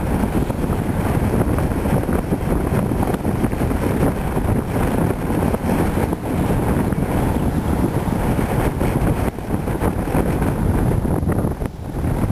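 Wind buffeting the camera's microphone: a steady low rumble with uneven gusts that eases briefly near the end.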